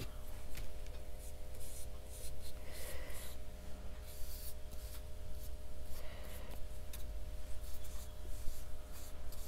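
Paintbrush stroking gilding adhesive onto a paper journal page: soft scratchy brush strokes, several times, over a steady low hum.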